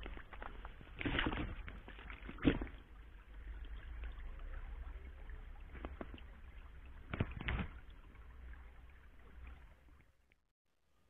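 Small shallow stream running over stones, a steady watery hiss with a low rumble under it and a few brief louder noises, fading out near the end.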